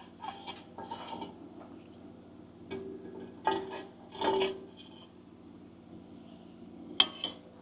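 Steel workpiece being handled and turned over on a metal surface: a series of clanks and scrapes with short metallic ringing, and two sharp metal clinks near the end.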